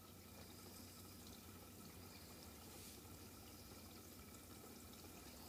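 Near silence: the faint steady hum and trickle of an aquarium's water pump.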